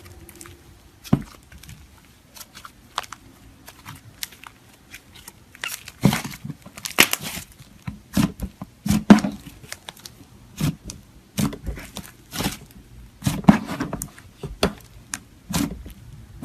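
Slime being squished and stretched by hand, giving irregular crackling pops and clicks, sparse at first and then denser and louder from about six seconds in.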